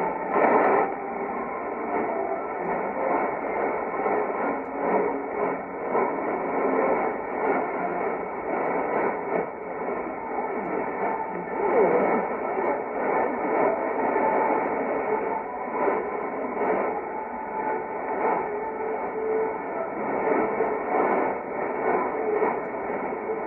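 Distant shortwave broadcast of Voice of Indonesia on 3325 kHz received in AM narrow synchronous mode. It is mostly static and hiss, swelling and fading, with faint programme audio buried under it and cut off above about 3 kHz by the narrow filter.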